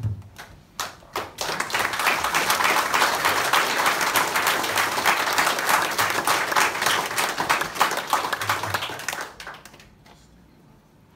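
Audience applauding: a few scattered claps about a second in, then full applause for about eight seconds that fades out near the end.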